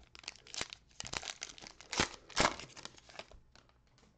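A foil wrapper on a 2021 Donruss football card pack being torn open and crinkled, a dense crackle that is loudest around two seconds in and dies away after about three seconds.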